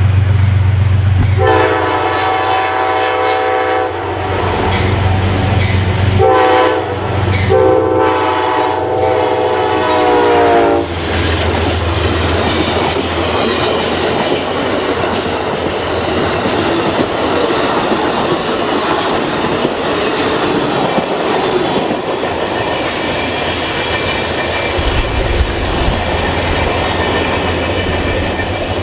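Amtrak passenger train passing close by: the locomotive's engine drone, then its chord horn sounding two long blasts, the second longer, then the steady rumble and clatter of the coaches rolling past with a thin, high wheel squeal on the curve.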